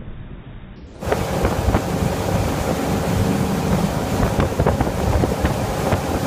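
Wind buffeting the microphone over the rush of a boat's wake and the boat's engine running. About a second in, the sound jumps louder and fuller.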